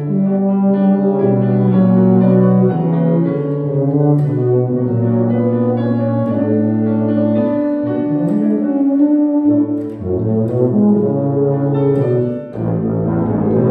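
Two tubas playing a duet of sustained low notes, with piano accompaniment.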